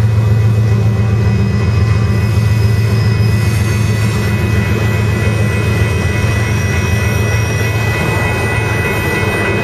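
Double-stack container train's loaded well cars rolling past at close range: a steady low rumble of steel wheels on rail, with thin, steady, high-pitched ringing tones over it.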